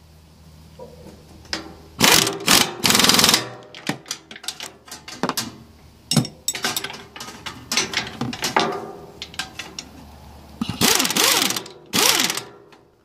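Socket wrench ratcheting in several short bursts of rapid clicks, with metal tools clinking in between, as bolts are worked in a cramped spot on a wood chipper.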